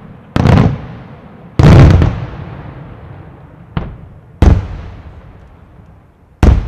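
Aerial firework shells bursting: five loud bangs a second or two apart, each followed by a fading echo, the biggest about one and a half seconds in and a smaller, sharper one just before the fourth.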